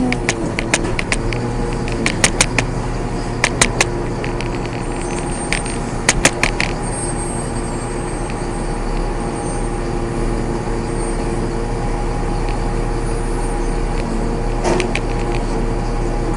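Self-contained trash compactor running with a steady motor hum, broken by a run of sharp clicks and knocks in the first several seconds and again near the end.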